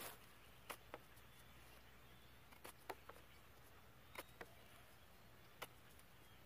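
Near silence: faint outdoor background hiss with a few scattered, irregular faint clicks and ticks.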